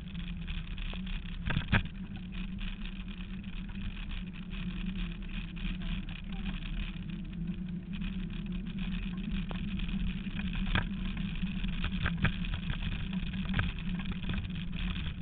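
Dog scooter rolling fast over a rough dirt trail behind a two-dog team: a steady rumble of wheels and rattle, with a few sharp knocks from bumps in the track.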